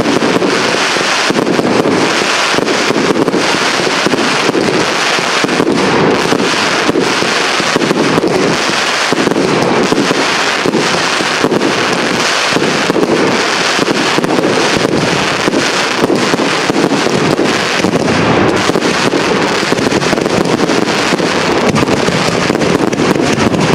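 Aerial firework shells bursting and crackling in a dense, continuous barrage, many reports a second with no pause.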